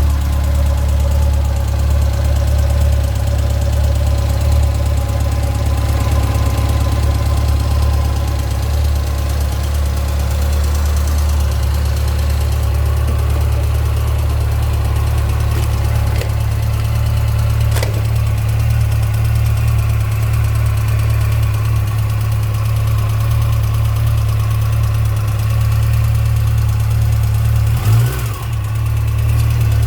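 2006 Yamaha FJR1300's inline-four engine idling steadily, with a mechanical noise the owner wonders may be the chain. The revs rise briefly near the end.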